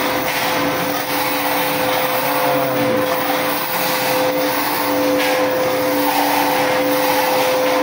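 Steady drone of a running machine with a constant two-note hum, unchanging throughout.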